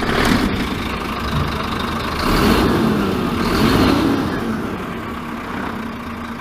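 Volvo N12 truck's straight-six diesel engine running through loud dual exhaust pipes, just after being started, swelling with two brief revs about two and three and a half seconds in before easing back toward idle.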